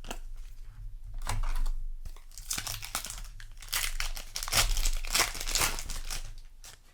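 Foil booster-pack wrapper crinkling and tearing, in a run of rustling bursts that die away near the end.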